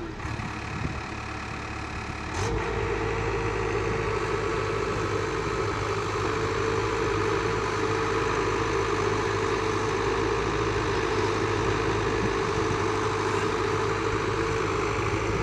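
Komatsu PC71 mini excavator's diesel engine running steadily while it works its boom and bucket, with a constant humming tone over the engine noise. The sound is quieter and changes for the first two and a half seconds, then settles into a steady run.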